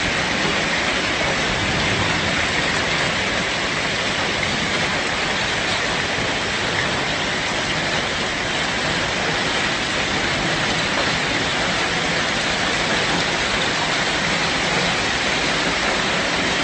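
Heavy rain making a steady, even rushing noise.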